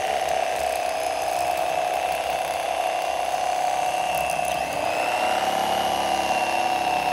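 Electric fillet knife running steadily with a high motor whine as it cuts fillets off a walleye, its pitch sagging slightly about five seconds in.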